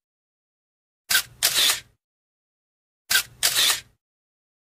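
Camera shutter sound effect, played twice about two seconds apart: each time a sharp click followed by a longer snap, with dead silence between.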